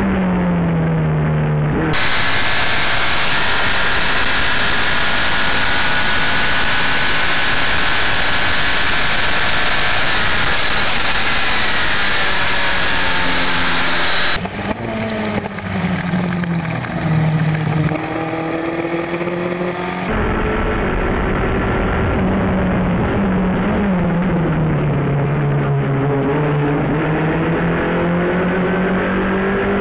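Formula F open-wheel race car engine at racing speed, heard onboard. Its pitch drops several times as the car slows for corners and then climbs again under hard acceleration. Heavy wind rush runs underneath, strongest in the first half.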